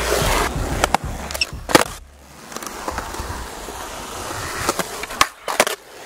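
Skateboard wheels rolling on concrete with a steady rolling hiss. Several sharp clacks cut through it, the board slapping the ground: two in the first two seconds and a quick cluster near the end.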